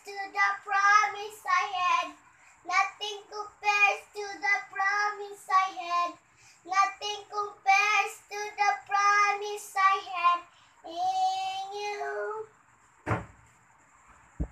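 A young girl singing a worship song unaccompanied, in phrases with short breaks and a long held note near the end of the singing. A single thump follows shortly after she stops.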